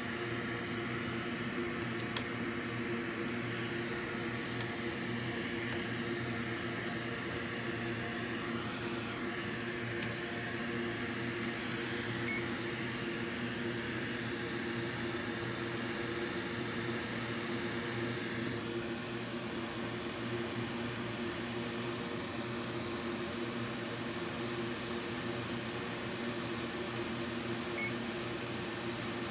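Hot air rework station blowing steadily with a constant hum and airy hiss as a surface-mount MOSFET is heated off the board. There are two short, faint beeps, one about halfway through and one near the end.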